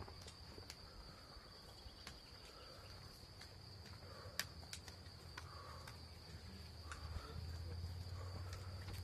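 Steady high chirring of meadow insects, with scattered sharp clicks of trekking poles and footsteps on the trail. A low rumble swells near the end as a runner comes close.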